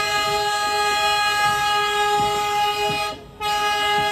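ALCO diesel locomotive air horn sounding a long blast of about three seconds, a short break, then a second, shorter blast. It is the departure signal as the train starts off.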